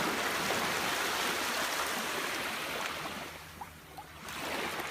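Waves washing over the jetty rocks: one long surge of surf for about three seconds, easing off, then another coming in near the end.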